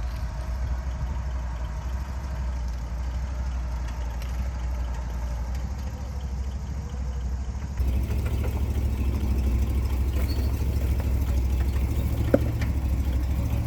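Off-road vehicle engine running steadily at low speed. About eight seconds in the sound changes abruptly to a louder, deeper engine drone, and a single sharp click comes near the end.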